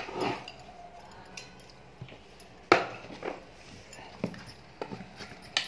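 Sharp knocks and clinks on a stainless steel bowl as it is handled and sesame-jaggery balls are set into it. The loudest knock comes about two and a half seconds in and rings briefly, followed by a few lighter taps.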